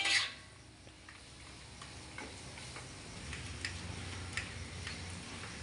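Faint, sparse clicks of a metal spatula against an aluminium wok during stir-frying, with a low steady hum coming in about halfway.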